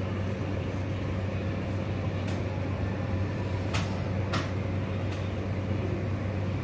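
A steady low electrical hum, with four light clicks between about two and five seconds in.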